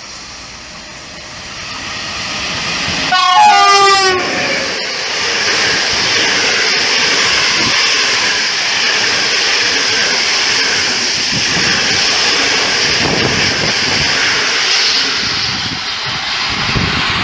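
An EU07 electric locomotive sounds its horn once, about a second long, about three seconds in. Its TLK train of passenger coaches then rushes past at speed, a steady loud rumble and hiss of wheels on rail.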